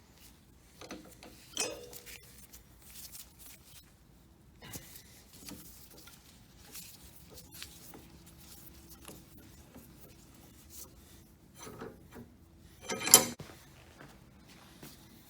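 Scattered small metal clicks and scraping as parts of a seized high-pressure waterjet swivel are worked apart with hand tools, with one sharp metallic knock about 13 seconds in.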